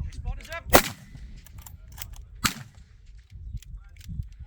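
Two shots from an Accuracy International AT .308 bolt-action rifle, a sharp crack about a second in and another nearly two seconds later.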